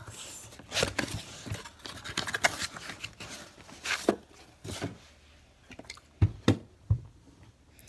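Handling noise from a cardboard shipping box being opened: a run of rustles, scrapes and light clicks, then three sharper knocks about six to seven seconds in as a stack of hard plastic PSA graded-card slabs is lifted out and handled.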